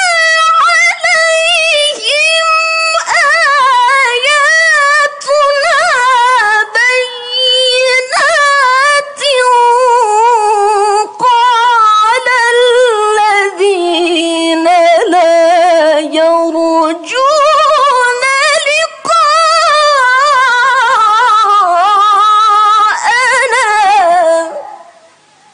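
Young woman's solo melodic Qur'an recitation (tilawah) in a high register: long, richly ornamented phrases with wavering pitch, broken by short breaths, fading out near the end.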